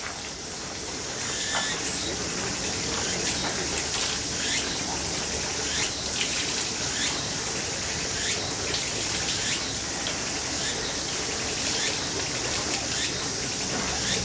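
Water from a bamboo spout and wooden ladles splashing and trickling into a stone purification basin, over a steady high insect drone with a short chirp repeating about every second and a quarter.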